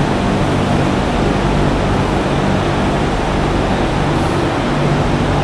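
Steady, loud mechanical drone of running machinery with a constant low hum, unchanging throughout.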